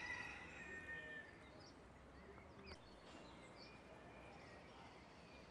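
Faint birdsong: a few high whistled notes and scattered short chirps, most in the first second and a half, over quiet outdoor background noise.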